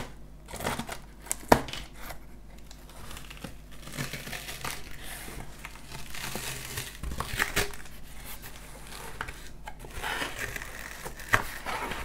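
Packing tape crinkling and tearing and cardboard flaps rustling as a shipping box is opened by hand, with a sharp tap about one and a half seconds in.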